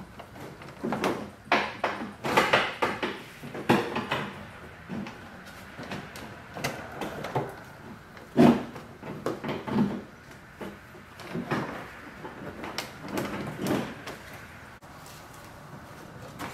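Plastic trim on a car's front end being handled: irregular knocks, clicks and scrapes, the loudest knock about eight and a half seconds in.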